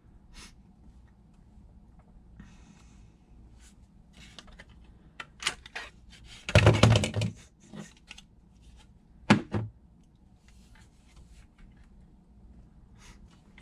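Handling noise from a 3D-printed plastic airsoft FPG being turned over and repositioned by hand: scattered plastic clicks and knocks, with a louder clattering knock about halfway through and a single sharp click a couple of seconds later.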